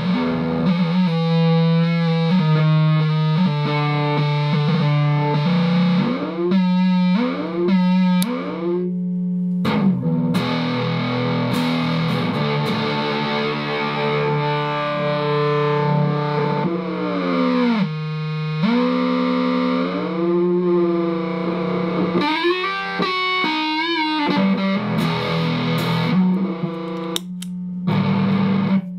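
Distorted droning tone from a chain of Dwarfcraft effects pedals and a Delta Labs digital delay, with repeating echoes. It breaks into rapid stuttering chops in places and slides down and up in pitch several times as the pedal knobs are turned.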